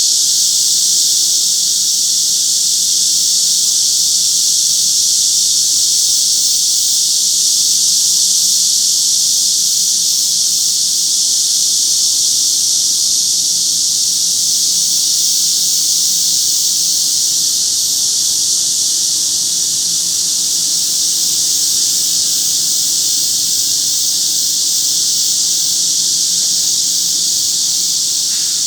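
Cicadas and wart-biter katydids (bush crickets) singing together: a dense, steady, high-pitched drone of insect song.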